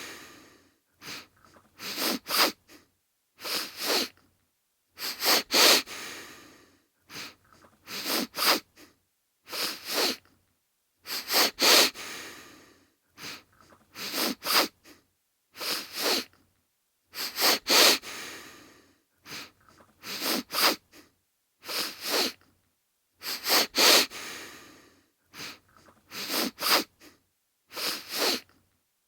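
A man sniffling with a cold: short sharp sniffs in quick bunches of one to three, repeated every second or two.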